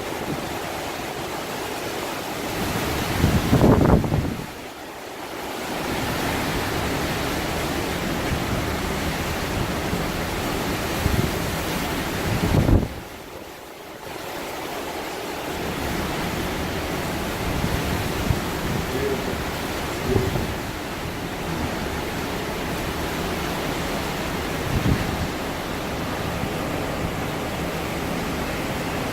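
Hurricane-force wind blowing in a steady, loud rush. Strong gusts hit the microphone about 4 and 13 seconds in, and each is followed by a brief lull.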